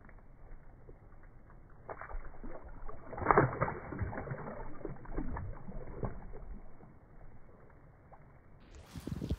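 Water splashing and sloshing in the shallows of a lake's edge as hands work in it, a run of irregular splashes loudest about three seconds in.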